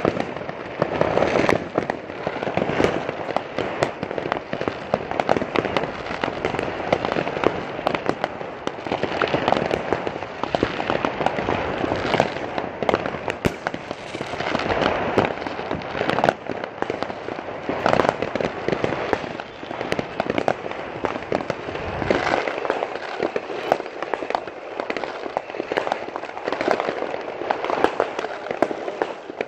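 Fireworks going off without pause: many sharp bangs and crackles overlapping one another, from aerial shells bursting all around.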